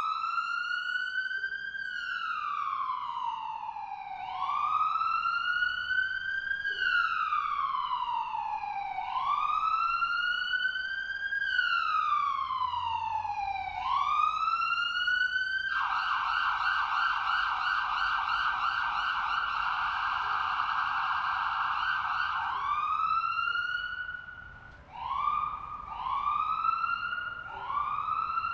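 Ambulance siren sounding a slow wail: a pitch that rises quickly and falls back, repeating about every four and a half seconds. About 16 s in it switches to a fast warbling yelp for some six seconds, then returns to shorter, quicker rising wails.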